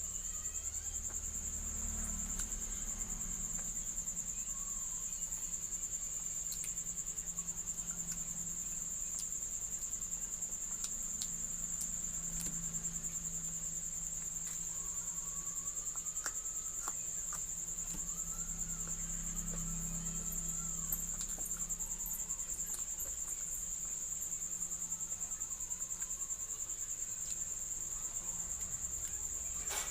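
Insects chirring steadily at a high pitch, with scattered faint clicks and a low hum underneath.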